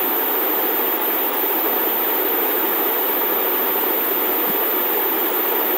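Steady rushing noise with no clear pitch, holding at an even level.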